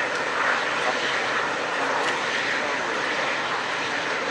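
Emirates Airbus A380-861's four Engine Alliance GP7270 turbofans running at taxi power, a steady jet rush.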